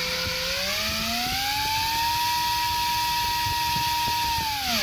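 Emax Eco 2207 2400 kV brushless drone motor spinning a Gemfan 51-50 propeller on a thrust bench at 50% throttle, making about 330 g of thrust. The whine rises in pitch over the first two seconds as the throttle comes up, holds steady, then drops away near the end as the throttle is cut.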